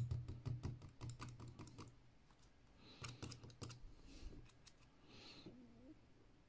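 Faint rapid clicking and tapping of small glued plasticard (styrene sheet) strips handled between the fingers as the glue joint is flexed and pulled, with a run of clicks over the first two seconds and another about three seconds in. The joint holds firm.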